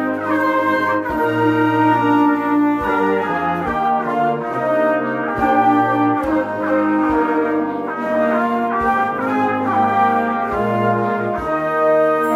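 Student wind band of flutes, clarinets, saxophones, French horn and tuba playing a piece together, holding sustained chords that change every half second to a second.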